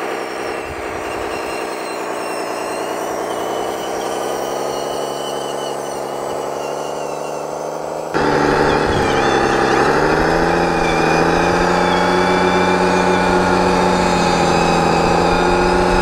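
1/14-scale Stahl/Liebherr 742 RC hydraulic bulldozer running, with its battery-powered drive and hydraulic pump making a steady mechanical drone of several pitches. The drone gets suddenly louder about eight seconds in and briefly dips in pitch just after, then holds steady.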